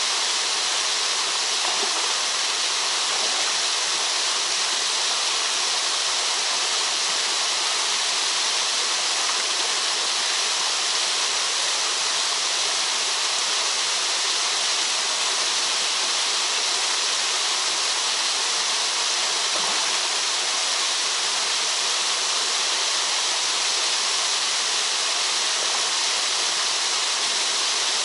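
Small waterfalls splashing steadily into a shallow rock pool: an even, unbroken rush of water.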